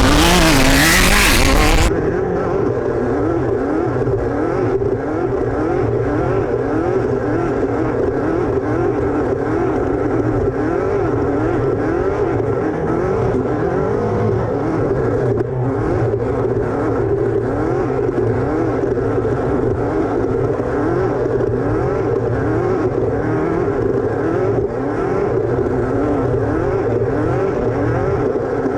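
Loud music cuts off about two seconds in. Then an off-road race car's engine runs hard, its revs climbing and falling back over and over, more than once a second.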